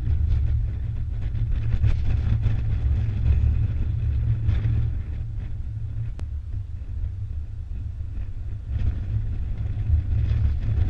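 Strong, gusty wind buffeting the microphone with a heavy low rumble, rising and falling as the gusts come and go.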